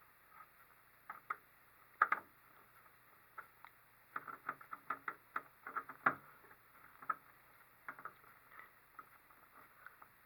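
Irregular clicks, taps and light scrapes of small hood-frame parts and screws being handled and screwed together by hand, busiest from about four to seven seconds in.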